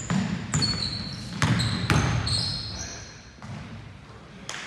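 A basketball being dribbled on a hardwood gym floor, with about five sharp bounces in the first two and a half seconds and one more near the end, each echoing in the hall. High squeaks run among the bounces, typical of sneakers on the court.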